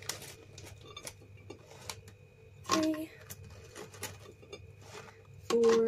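A tablespoon clicking and tapping against a blender bottle as spoonfuls of raisins are tipped in: a scattered run of small clinks.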